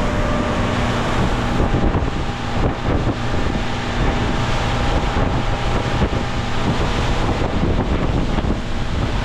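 Motorboat engine running with a steady low hum under heavy wind noise buffeting the microphone, with water washing past the hull.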